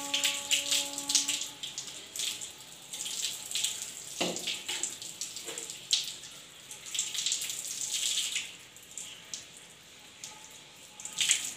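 Water splashing onto a concrete floor, first poured from a plastic mug over long hair, then dripping and spattering off the wet hair as it is squeezed and worked, in irregular splashes.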